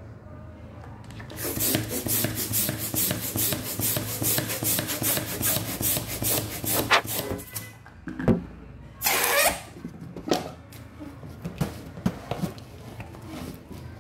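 Red latex balloon being inflated and handled: a rapid run of rubbery rubbing strokes, about four a second, for several seconds, then a louder squeaky rasp of the rubber and a few light taps.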